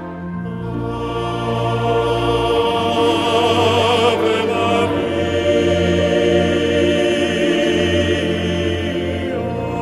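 Soundtrack music: held, wavering sung notes in the manner of a choir over long sustained low notes.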